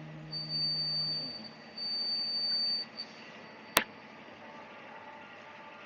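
Electronic beeper giving two long, high-pitched beeps of about a second each, then a short blip, followed by a single sharp click.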